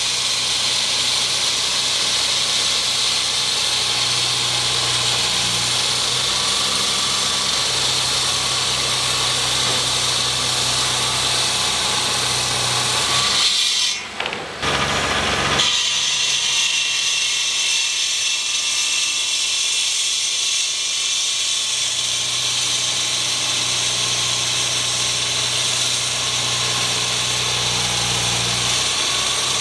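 Power tool running continuously at a construction site, with a dense high hiss over a steady low hum. The tool stops for about a second and a half near the middle, then starts again.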